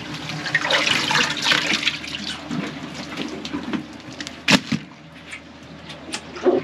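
Water splashing and trickling in irregular spurts over a steady low hum, with a sharp knock about four and a half seconds in and another near the end.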